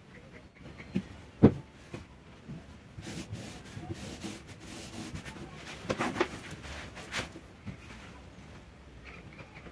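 Upholstery fabric being stretched and smoothed by hand over a cardboard box: rubbing and rustling, with a few sharp knocks as the box is handled, twice about a second in and again around six and seven seconds.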